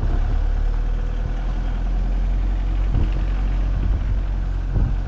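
A freight vehicle's engine running steadily at low speed, heard from inside the cab, with a couple of brief low thumps as it rolls over the rough dirt road.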